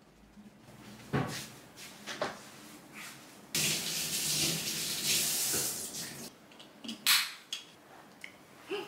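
Kitchen tap running for about three seconds to wet a cloth, starting and stopping abruptly. A few short knocks and clatters come before and after it, the loudest just after the water stops.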